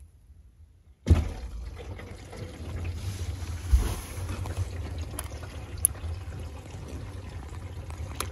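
Water from a garden hose spraying onto the outside of an Infiniti G37 coupe's door and roof, heard from inside the cabin. It starts suddenly about a second in and runs on as a steady wash of water with a low rumble, with a few sharp ticks. This is a hose leak test, which shows water coming in past the upper door seal.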